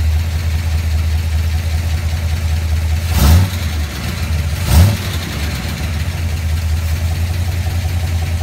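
1976 Ford Bronco's engine idling with a steady low rumble, revved briefly twice, about three and five seconds in, by the throttle being worked by hand under the hood.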